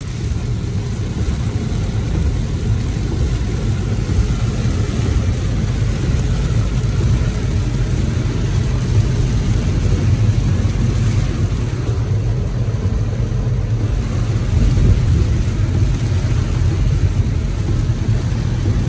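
Steady low rumble of a car driving on rain-soaked roads, heard from inside the cabin, with a fainter hiss of rain and wet tyres above it.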